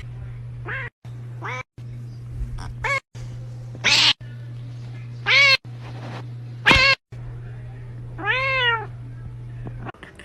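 Cats meowing, about seven separate calls, several rising and falling in pitch, the loudest about four and seven seconds in. A steady low hum runs beneath, broken by a few abrupt gaps, and stops near the end.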